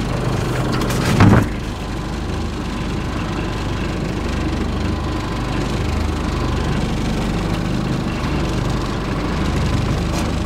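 Evinrude 40 outboard motor idling steadily. A brief knock about a second in.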